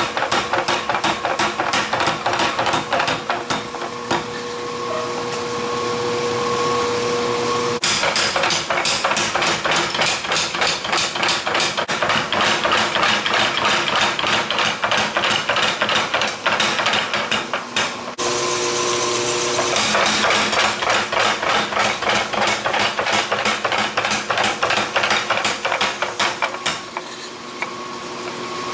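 Mechanical power hammer pounding hot steel in a rapid, even rhythm of several blows a second, drawing out a steel bar for a blade. A steady hum from the machine runs underneath.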